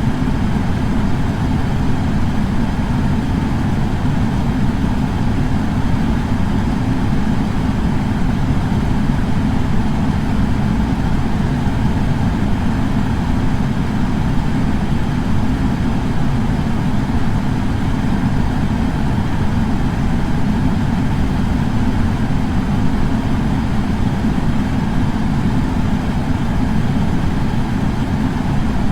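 Air purifier fan running steadily, a constant low whooshing hum of moving air with no change in speed.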